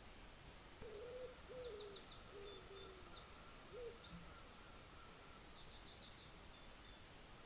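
Faint animal calls: a few short, low, falling squeaks in the first half, and two bursts of rapid high chirping ticks, the second near the end.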